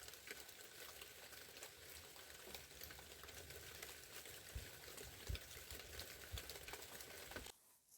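Faint light rain pattering, a steady crackle of many fine ticks. It cuts off abruptly near the end.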